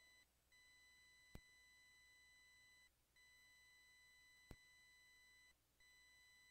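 Near silence, with a faint steady electronic tone that cuts out briefly about every two and a half seconds and a faint sharp click about every three seconds.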